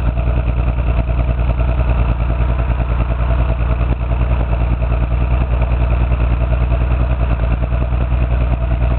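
Toyota 7M-GE inline-six idling roughly with a steady misfire: cylinder 6 is getting no spark, and a blown head gasket turned out to be the cause.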